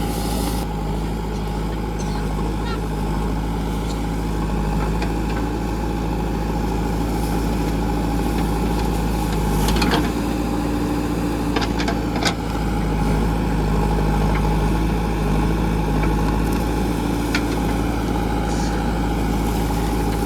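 JCB 3DX backhoe loader's diesel engine running steadily at low revs, with a couple of short knocks about halfway through.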